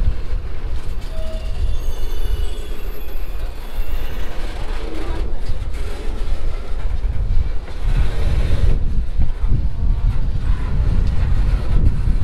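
Subway train running on the track: a heavy low rumble, with a faint high wheel squeal about two to four seconds in.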